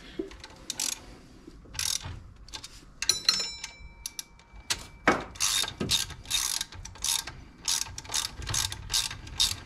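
Hand ratchet wrench on an extension tightening a bolt on an LS engine's accessory-drive bracket: a few scattered clicking strokes, then from about five seconds in steady back-and-forth ratcheting at about three strokes a second. A short metallic clink with a brief ring comes about three seconds in.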